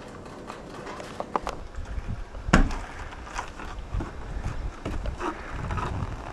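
Footsteps of rubber boots coming down wooden stairs and then walking on packed snow, an irregular run of soft thuds. One sharp knock about two and a half seconds in is the loudest sound.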